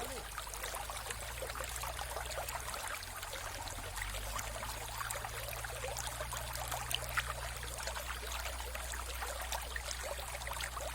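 Mountain river flowing steadily over stones: a continuous rush of water with small splashes and trickles, over a low steady rumble.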